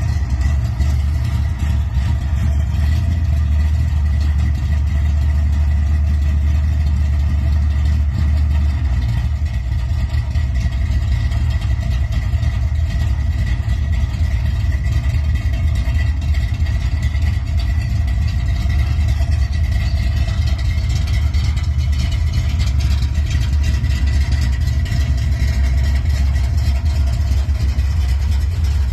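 An engine idling steadily, deep and even, with a slight change in its low note about nine seconds in.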